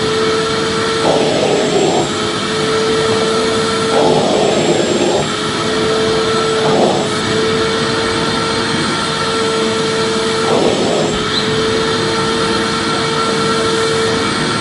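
Electric vacuum cleaner running steadily: a loud rush of air over a steady motor whine. The whine breaks four times, for about a second each, into a rougher rush.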